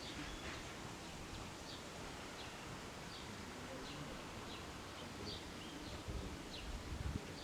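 Wind blowing outdoors as a steady hiss, with low buffeting gusts on the microphone about six to seven seconds in. Small birds chirp briefly and repeatedly in the background.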